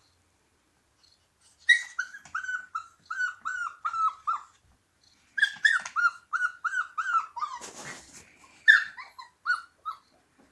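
Husky puppy 'singing': a string of short, high-pitched yipping howls, about three a second, in two runs with a pause between. There is a brief scuffing noise during the second run.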